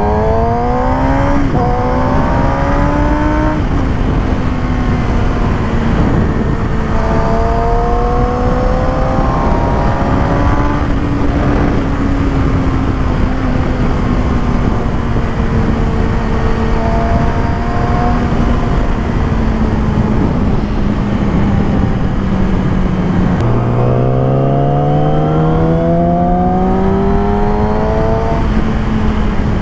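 Motorcycle engine under way, mostly holding a steady note but rising in pitch three times as it accelerates, over a constant rush of wind and road noise.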